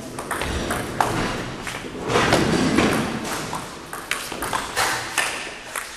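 Table tennis rally: the celluloid ball clicking sharply off the paddles and the table, several quick hits ringing in a gym hall. A louder stretch of noise about two seconds in.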